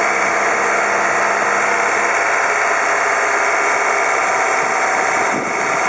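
Honda K20A6 2.0-litre four-cylinder engine idling steadily, heard close up in the engine bay as an even, unbroken mechanical running sound.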